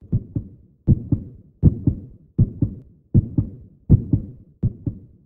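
Heartbeat sound effect: a steady lub-dub double thump repeating about every three-quarters of a second, roughly 80 beats a minute.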